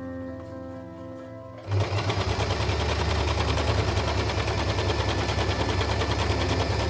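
Usha Allure DLX electric sewing machine starting up about two seconds in and running fast and steady under the foot pedal, its needle mechanism clattering in a rapid, even rhythm as it stitches.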